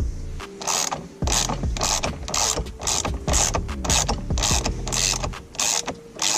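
Socket ratchet clicking as it loosens and spins out the M12 triple-square steering-wheel bolt, in repeated strokes about twice a second.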